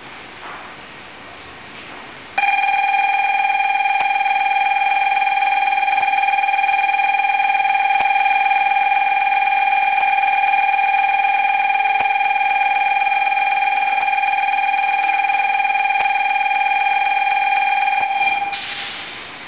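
Station platform departure bell ringing loud and steady on one pitch, starting a couple of seconds in and stopping abruptly near the end: the signal that the train is about to depart.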